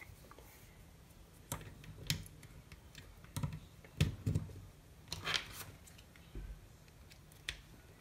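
Handling of a braided USB-to-Lightning charging cable on a wooden desk: several light clicks and knocks with brief rustles as the cable is picked up and pulled across the desk.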